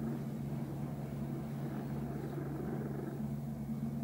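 Domestic cat purring loudly and steadily while being stroked, a rough low rumble.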